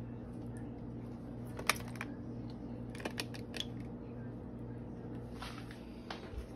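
A few light clicks and taps of a utensil against a glass bowl of shrimp, a sharper one just under two seconds in and a small cluster a second later, over a steady low electrical hum.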